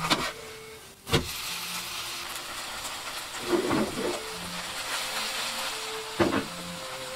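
Shredded-potato pancake frying in oil in a frying pan, with a steady sizzle. It lands with a sharp thud about a second in as it is flipped, and a few light knocks follow later.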